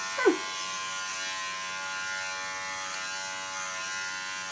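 Bravura cordless pet clipper fitted with a comb attachment, running with a steady buzz as it is swept through a puppy's fluffy coat. A brief falling vocal sound comes about a quarter-second in.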